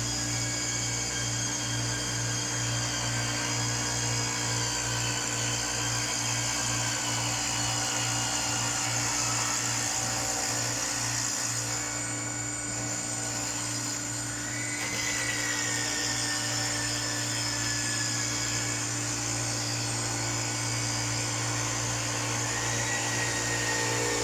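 CNC five-axis stone cutting machine running, a steady machine hum with high whining tones, some of which slowly drift down in pitch.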